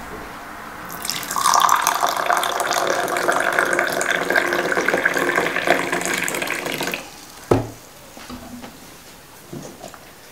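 Hot herbal tea poured into a small terracotta cup for about six seconds, the splashing pitch rising as the cup fills. One sharp knock follows about seven and a half seconds in.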